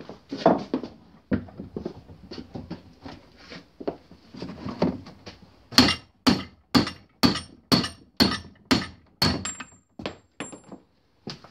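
Soft-faced hammer tapping the old rear output bearing down off a Land Rover LT230 transfer box shaft held in a vise. Lighter, uneven knocks and handling at first, then about ten sharp, even blows at roughly three a second, followed by a faint metallic ring.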